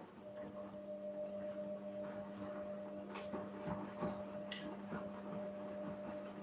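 Front-loading washing machine running its rinse cycle: a steady motor hum, with a few short clicks and knocks about halfway through.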